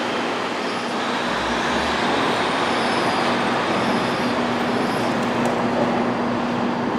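Class 156 Sprinter diesel multiple unit pulling away, its underfloor Cummins diesel engines running steadily under power with a constant drone.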